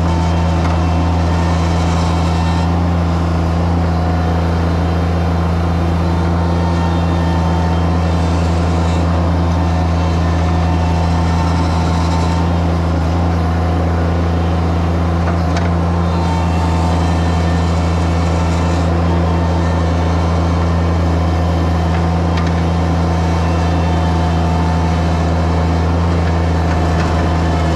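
Mini skid steer's engine running steadily at constant speed, an even low hum that does not change throughout.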